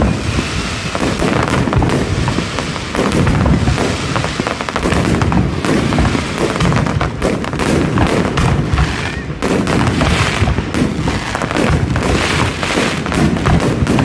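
Fireworks going off in a continuous rapid barrage of bangs and crackles, many per second, with deep booms underneath.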